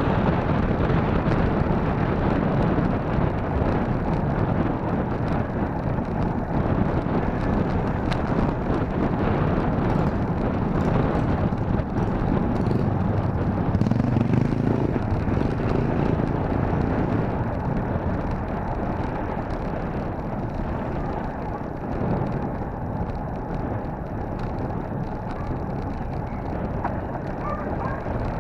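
Wind buffeting the microphone of a camera on a moving bicycle: a steady, low, rushing rumble that eases a little about two-thirds of the way through.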